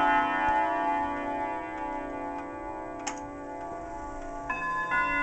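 Chime rods of a German triple-chime wall clock ringing and fading after a chime, with the pendulum movement ticking. There is a sharp click about three seconds in, and new chime notes are struck near the end.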